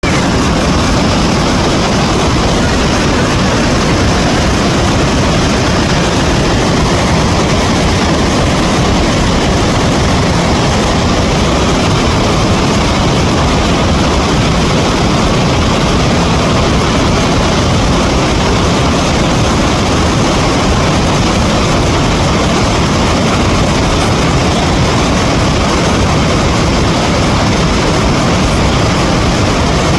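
Loud, steady rush of river water pouring through the open gates of a dam.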